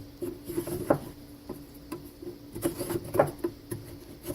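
Scattered light clicks and taps of wooden beehive frame parts being handled, with a couple of sharper knocks about a second in and just past three seconds, over a faint steady hum.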